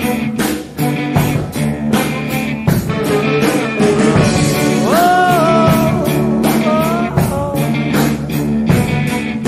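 Background rock music with a steady beat and guitar; about halfway through, a note slides up and is held.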